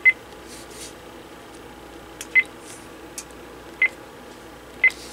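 Sanyo CLT-9581 cordless phone handset giving short, single-pitched beeps as its keypad buttons are pressed one at a time, about four beeps irregularly spaced: the key-press confirmation tones while the buttons are being tested.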